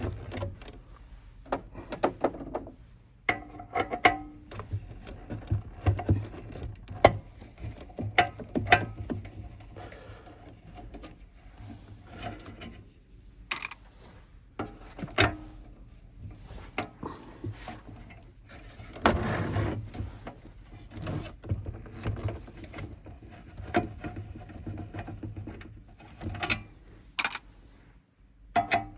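Hex nuts being turned off the bottom plate of a tube radio with a hand tool: scattered small metal clicks and light knocks, with a longer, louder rattle about two-thirds of the way through.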